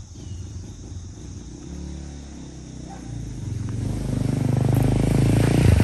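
Dirt bike engine running at low revs, growing steadily louder over the last few seconds as the bike comes up close.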